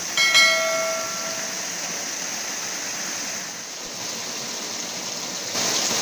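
Steady rush of flowing river water, with a ringing tone fading away in the first second.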